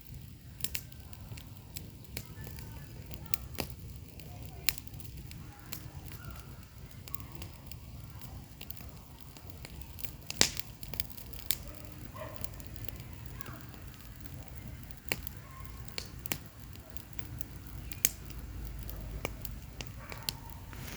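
Bonfire crackling, with irregular sharp pops and snaps, the loudest about ten seconds in and again near the end, over a steady low rumble.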